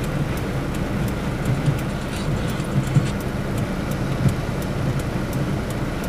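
Inside a car's cabin in heavy rain: a steady low engine and road hum, with many small sharp ticks of raindrops striking the windshield.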